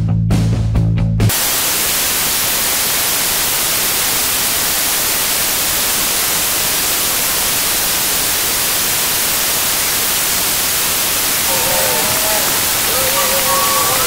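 Rock music cuts off abruptly about a second in, giving way to a steady, loud, even hiss. Near the end, faint wavering cheers rise over the hiss.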